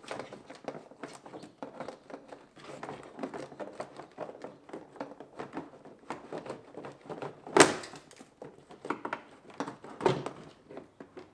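Stock plastic air box of a BMW E46 330Ci being worked loose and lifted out of the engine bay: irregular plastic scraping, creaking and clunking, with one sharp loud knock about seven and a half seconds in and another near the end.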